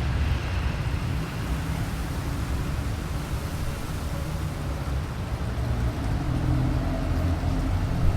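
Gusty wind: a steady rushing noise with a low, wavering rumble.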